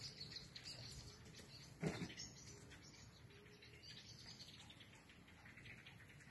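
Faint chirping of small birds in the background, with one brief soft thump about two seconds in.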